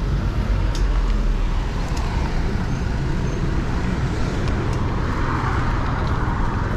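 Steady city traffic and road noise heard from a moving bicycle, with a low wind rumble on a GoPro action camera's microphone. The noise swells about five seconds in.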